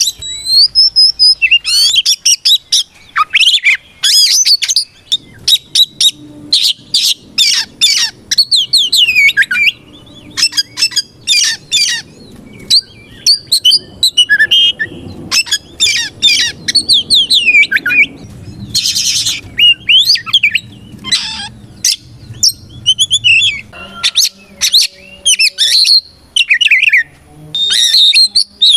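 Oriental magpie-robin singing in full song: a rapid, almost unbroken run of varied whistles, glides, trills and harsh squawking notes.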